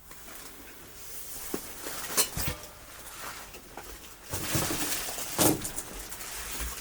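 Footsteps over a floor strewn with debris and clutter: irregular crunching and rustling, with sharp crackles and knocks about two seconds in and again around five seconds in.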